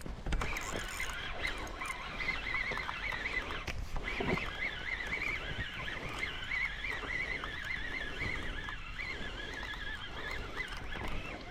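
Fishing drone flying out with the bait, its propellers giving a high whine that wavers constantly in pitch as the motors adjust.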